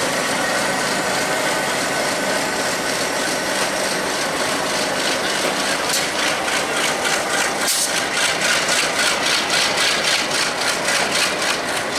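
WDM-3A diesel-electric locomotive's engine running steadily as it hauls a passenger train slowly past. From about halfway in, a quick, even clatter of wheels on the track joins it.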